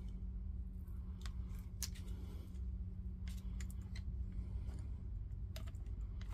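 Scattered small crackles and pops of flux and solder spitting as a hot soldering iron melts the solder joints of a battery protection board, over a steady low hum.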